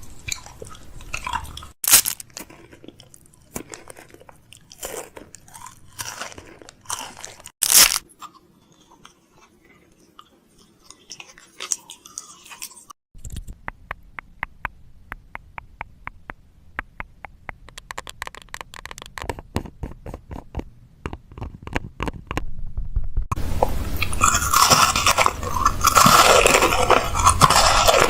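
Chewing and crunching: scattered crisp crunches and clicks, then a fast run of small clicks, turning louder and denser in the last few seconds.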